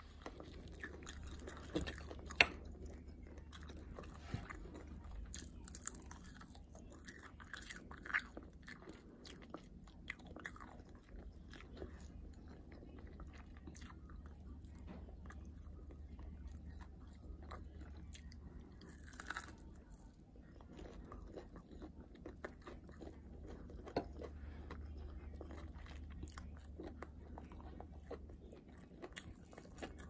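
Close-miked chewing and biting of Popeyes fried chicken, with scattered sharp crunches of the crispy breading and wet mouth sounds. A steady low hum runs underneath.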